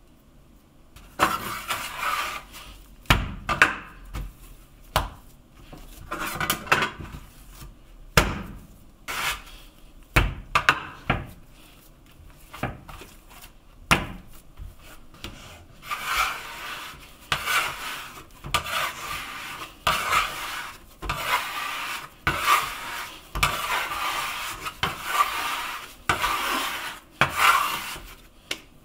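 Pizza dough being kneaded by hand on a bamboo cutting board: the dough pushed and dragged along the wood with rubbing strokes, and now and then a dull thump as it is slapped down on the board. In the second half the strokes fall into a steady rhythm of about one a second.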